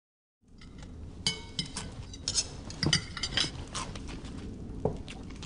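After a brief silence, cutlery and crockery clink and knock irregularly, as at someone eating a meal at a table.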